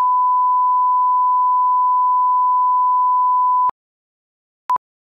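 Steady 1 kHz reference tone of a colour-bar test signal, cutting off suddenly about three and a half seconds in; after a second of silence comes one short beep at the same pitch, a countdown-leader beep.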